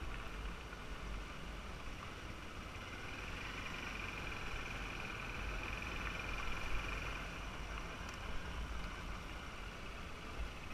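Motorbike riding along a dirt road: steady engine and road noise, with wind rumbling on the microphone.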